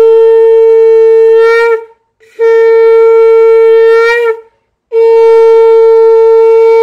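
A conch shell (shankha) is blown three times in a Hindu puja. Each blast is a long, steady, loud horn tone lasting about two seconds and ends with a brief waver in pitch, and there are short gaps between the blasts.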